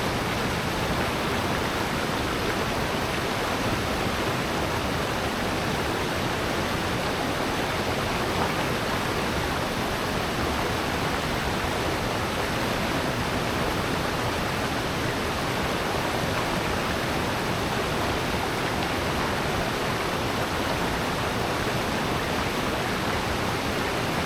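Steady rush of water in a rocky valley gorge, a continuous even roar with no breaks.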